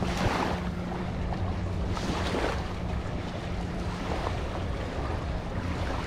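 Small waves washing up on a sandy beach, surging about twice, over wind on the microphone and a steady low hum.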